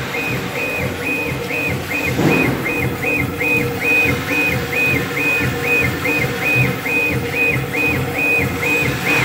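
Stone-engraving CNC laser marker's gantry motors whining in an even rhythm of about three strokes a second, each stroke's tone rising, holding and dropping as the laser head sweeps back and forth raster-marking a photo into granite.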